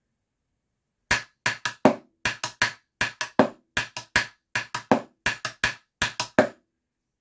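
Wooden drumsticks striking a rubber snare practice pad, playing a steady marching-snare pattern of quick three-note gallop figures on every beat. The playing starts about a second in and stops shortly before the end.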